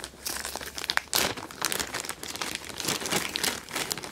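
Clear plastic bag crinkling and rustling as hands open it, in dense, irregular crackles.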